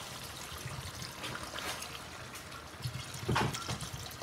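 Water poured from a jug into a steel cooking pot of browned chicken, trickling and splashing steadily, with one louder moment about three and a half seconds in.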